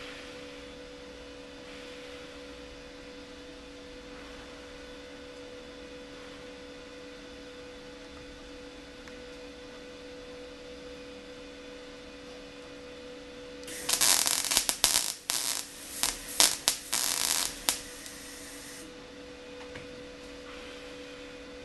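Steady electrical hum, then about two-thirds of the way in a MIG welder's arc crackling in several short bursts over about five seconds: the sheet-metal fender seam being welded slowly in short stitches so the panel doesn't warp.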